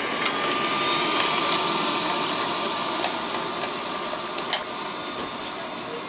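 Liectroux B6009 robot vacuum cleaner running on carpet, a steady suction hum with a thin whine, as it sweeps up dry debris. A few sharp ticks sound through it, and it grows slowly quieter toward the end as the robot moves away.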